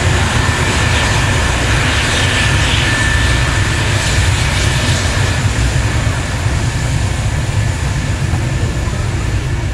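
McDonnell Douglas F-4 Phantom jets' J79 turbojet engines running on the ground: a loud, steady low rumble with a thin high whine over it, easing slightly about two-thirds of the way in.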